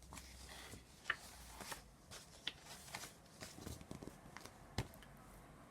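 Faint rustling and scattered light clicks of a picture book's paper pages being handled.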